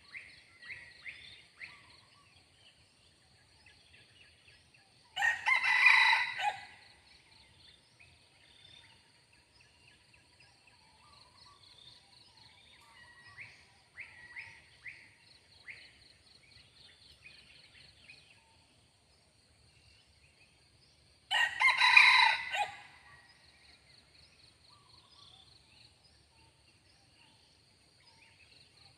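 Red junglefowl rooster crowing twice, each crow about a second and a half long, some fifteen seconds apart. Between the crows, small birds chirp and a steady high-pitched insect drone continues.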